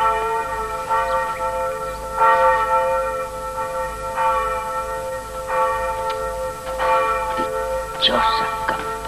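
A church bell tolling steadily, about one stroke a second, each stroke ringing on into the next.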